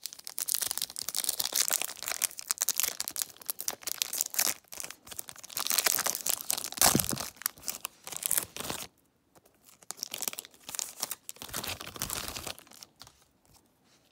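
Foil wrapper of a trading-card pack being torn open and crinkled by hand, a dense crinkly rustling that is loudest around seven seconds in. After a short pause there is a second, shorter stretch of rustling, and then it goes quiet.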